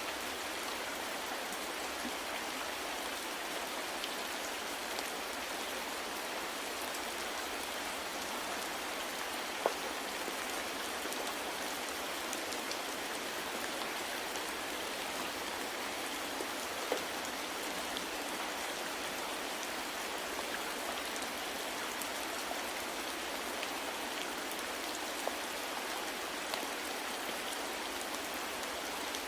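Steady rain falling, an even hiss of many drops, with now and then a single drop standing out as a faint click.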